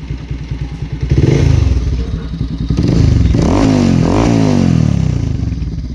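Bajaj Pulsar 220's single-cylinder engine revving in neutral: it blips up briefly about a second in, then is revved higher twice in quick succession from about three seconds, and drops back toward idle near the end.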